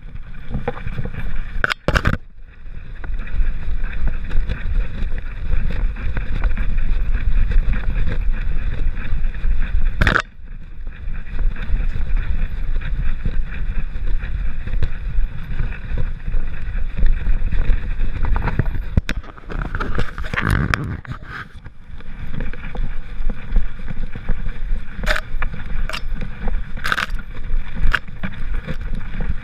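Handling noise from a GoPro HERO3 in its housing strapped to a walking poodle's back: a steady, heavy rumble as the case jostles and rubs with the dog's movement, broken by several sharp knocks and clicks.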